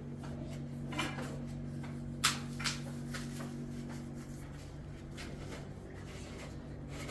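A few sharp knocks and clatters of objects being handled, about a second in and twice more a second later, over a steady low hum.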